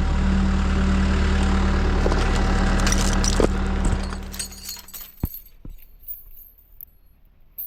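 Hino rollback tow truck's diesel engine running steadily with a low hum, dropping away about four seconds in, with a few short knocks around the middle.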